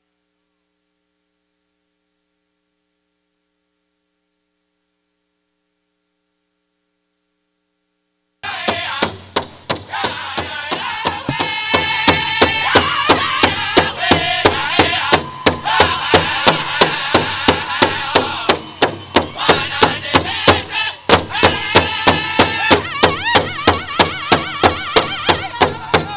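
Near silence for about the first eight seconds, then a powwow drum group starts: a big drum struck together by several drummers in a fast, even beat, with singers in a high-pitched powwow song over it.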